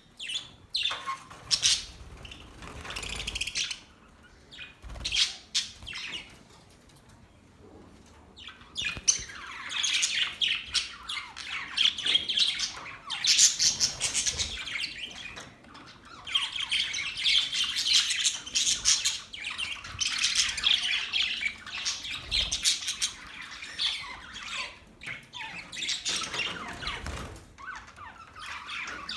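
Budgerigars chirping and chattering, with scattered chirps at first, a short lull, then a near-continuous warbling chatter for the rest of the time.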